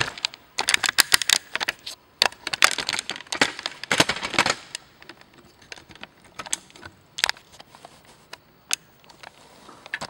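Irregular clicks and light knocks of a black plastic battery end cap and small parts being handled on a plywood workbench. They come thick and fast for the first four seconds or so, then thin out to occasional single clicks.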